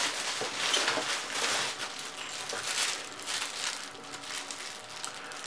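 Clear plastic packaging bags crinkling and rustling in the hands as small bagged accessories are unwrapped and handled, with irregular crackles.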